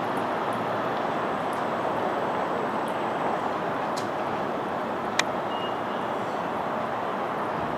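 Steady background noise of road traffic, with a short sharp click about five seconds in.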